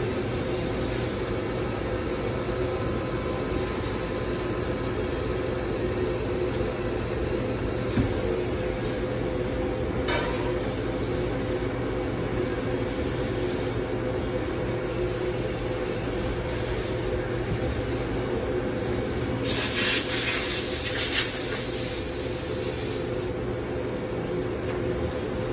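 CNC machining centre running, its axis drives moving the spindle head around the ballbar's circle during a ballbar test of the machine's motion. It makes a steady hum with several held tones, a click about eight seconds in, and a short hissing rattle a few seconds before the end.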